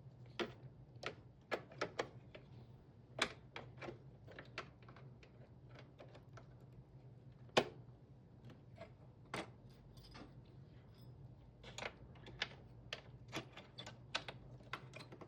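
Irregular clicks and light knocks of server components and cables being handled and snapped into a rack-server chassis during reassembly, the sharpest knock about halfway through, over a faint steady hum.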